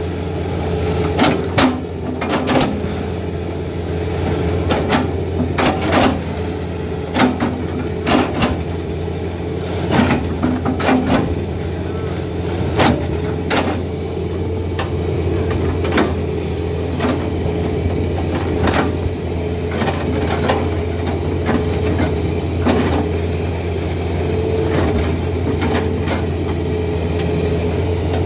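Tracked excavator's diesel engine running steadily under load, with repeated sharp knocks as its knife bucket chops a felled oil palm trunk into slices. The knocks come close together in the first half and more sparsely later.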